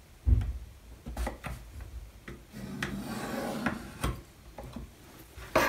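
Pencil drawing a line along a steel ruler on a thin plywood deck plate: a scratchy stroke of about a second in the middle, among sharp clicks and knocks as the ruler and pencil are set down and shifted, with a dull thump just after the start and another knock near the end.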